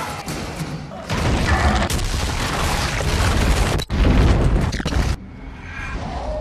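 Horror-film sound design: loud, deep booming and crashing noise that surges about a second in, cuts out sharply for an instant near the four-second mark, and drops away a little after five seconds.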